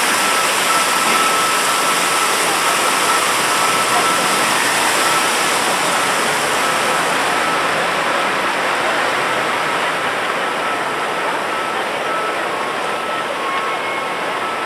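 Steady splashing of water pouring over the rim of a fountain basin, mixed with city traffic. About halfway through, the splashing gives way to plainer street and traffic noise.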